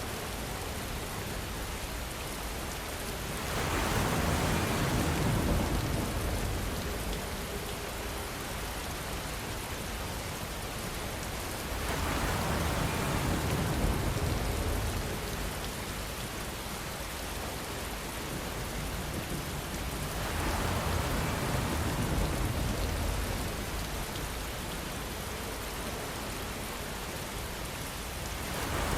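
Steady rainfall, swelling heavier for a couple of seconds about every eight seconds.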